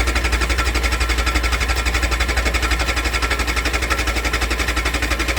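Yamaha YZF 600 motorcycle engine being turned over on its electric starter with the choke on, a steady, rapid, even pulsing that goes on without the engine catching. The bike will not start or stay running, which a friend put down to the carburettors.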